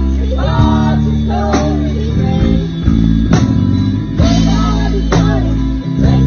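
Live band playing a country-rock song: bass and electric guitar over drum hits, with a young boy singing the melody into a microphone.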